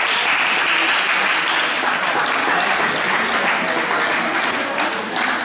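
Spectators applauding, a dense patter of claps that thins out near the end.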